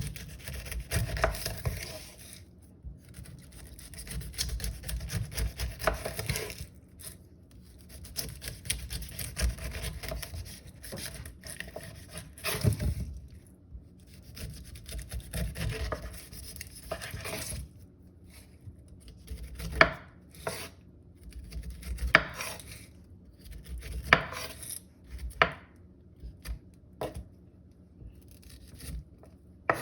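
Kitchen knife cutting down through a pineapple's rough rind, with a rasping slicing sound. In the second half the blade knocks sharply on the cutting board a few times, about every two seconds.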